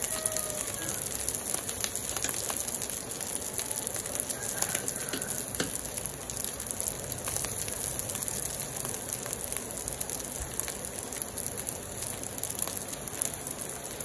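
Rice frying in a steel wok over a gas flame: a steady crackling sizzle, with the odd click and scrape of the metal spatula turning it.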